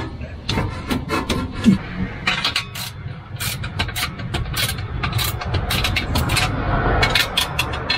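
Socket ratchet wrench clicking in runs of quick strokes as a clamp bolt on a new exhaust pipe is tightened, the strokes densest a couple of seconds in and again from about five seconds to near the end.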